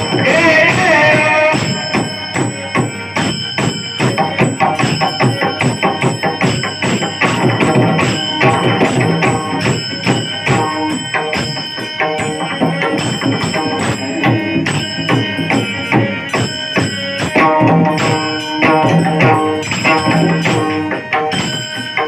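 Bhajan accompaniment played without singing: a pakhawaj drummed in fast, dense strokes, with metallic percussion ringing steadily above it.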